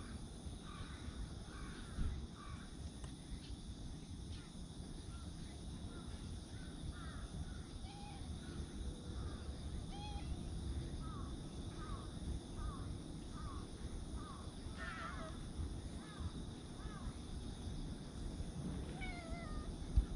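Birds calling in the background, a run of short calls repeated about twice a second with brief pauses, over a steady high insect drone. A single thump about two seconds in.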